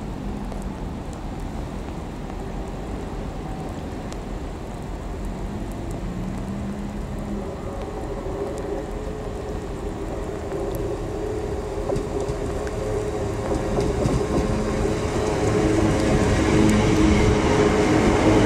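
Great Western Railway Class 387 electric multiple unit approaching and running past close by, growing steadily louder. Its steady electric motor whine and wheel-on-rail rumble come up strongly as it draws level near the end.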